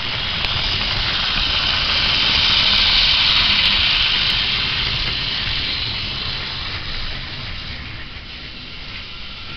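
Battery-powered Tomy toy train's small electric motor and gears whirring as the locomotive runs along plastic track past the listener. Loudest about three seconds in, then fading.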